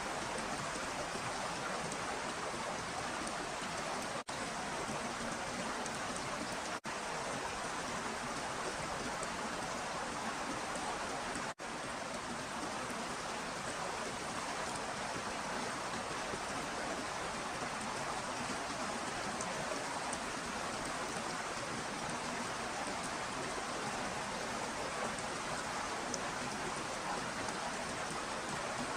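Steady hiss of water noise, rain-like, with no distinct events, broken by three very brief dropouts.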